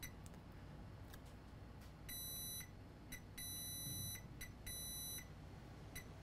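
Digital multimeter's continuity beeper sounding as the probes touch a MOSFET: a few short chirps and three longer beeps of about half a second to nearly a second. The beeping is the sign that the MOSFET is shorted to ground again.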